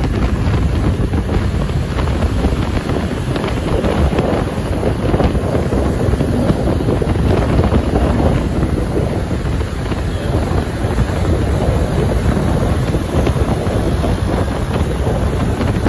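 Steady wind buffeting the microphone over the rumble of a vehicle on the move; no horn sounds.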